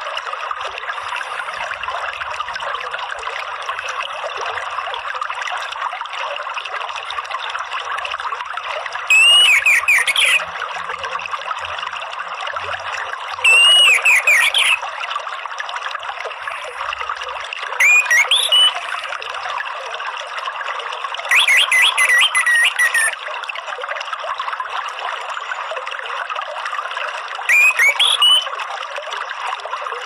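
Orange-headed thrush (anis merah) singing its loud, open 'ngeplong' song in five short phrases of quick whistled notes, a few seconds apart, over a steady rush of flowing water.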